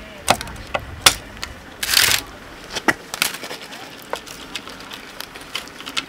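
Scissors snipping through white plastic ties on a bamboo-slat wall: a series of sharp, irregular snips, with a brief rustle about two seconds in.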